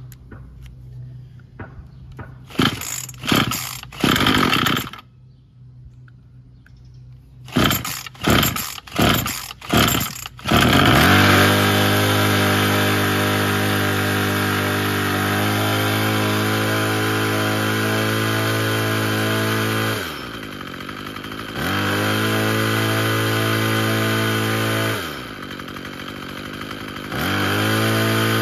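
Troy-Bilt TB22EC two-stroke string trimmer being pull-started: several quick pulls on the recoil starter in two rounds, then the engine catches about eleven seconds in and runs steadily, freshly back to life after a new pull cord and fuel return line. Twice its speed drops and then picks back up.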